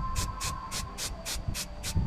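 Aerosol spray-paint can hissing in short, rapid bursts, about four a second.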